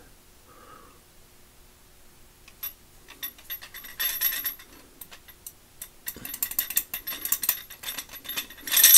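Light metal-on-metal clicks and clinks from the shaft of a Quinn 1/2-inch drive extendable breaker bar being slid and twisted inside its tube to line up the hole so the retaining pin drops out; the pin does not come free. Quiet for the first couple of seconds, then scattered clicks, getting busier and loudest near the end.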